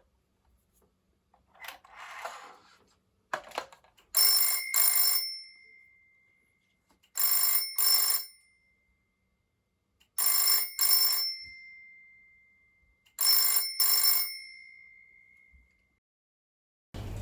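Single-coil mechanical bell of an AWA 891 Wallfone telephone ringing in four double rings about three seconds apart, each pair of strokes ringing out and fading. A soft clatter and a few clicks come before the first ring.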